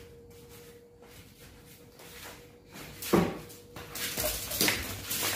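Dandie Dinmont terrier playing with a ball on a tiled floor. Quiet at first, then one loud knock about three seconds in, followed by a run of shorter knocks and scuffles.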